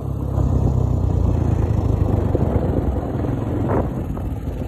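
ATV engine running as the quad rides along a snow-covered road; its drone steps up in loudness just after the start, as the throttle opens, and then holds steady.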